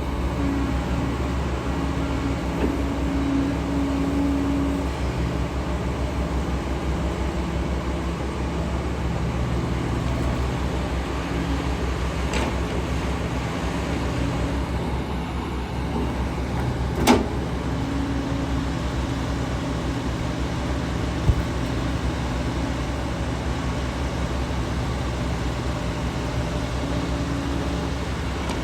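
Diesel engine of heavy earth-moving machinery running steadily, with a few sharp knocks or clanks, the loudest about seventeen seconds in.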